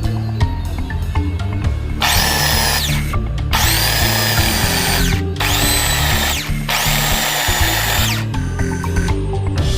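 RotoRazer compact circular saw's electric motor, with replacement carbon brushes fitted, switched on four times, each run whining up to speed and winding down when released. Background music plays underneath.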